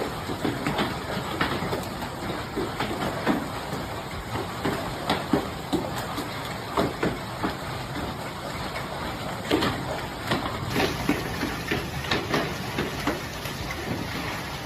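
Hailstorm with heavy rain: a steady downpour with many irregular sharp knocks of hailstones striking hard surfaces.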